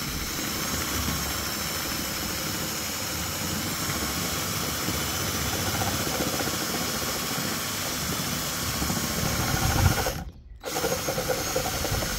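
Cordless DeWalt drill spinning a small Dremel grinding bit against the carbon-fibre roof, grinding away adhesive over a mounting bolt: a steady high-pitched whine with grinding noise. It stops for about half a second near the end, then starts again.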